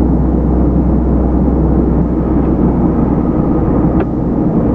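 Diesel engine of a Renault Magnum tractor unit running steadily, heard from inside the cab as a low, continuous hum, with a single click about four seconds in.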